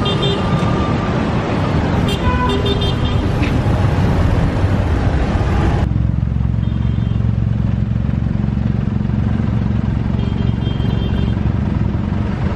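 Traffic at a standstill: car and motorcycle engines running close by, with a few faint tones above the noise. Just under halfway through, the hiss drops away suddenly and a steady low engine rumble is left.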